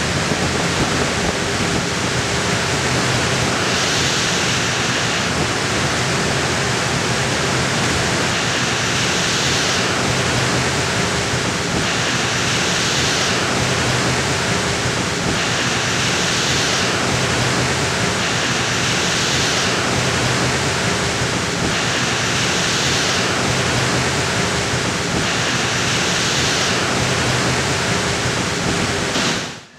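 Banks of large wall-mounted fans running at full speed: a loud, steady rush of air over a low hum, with a brighter hiss that swells and fades about every three seconds.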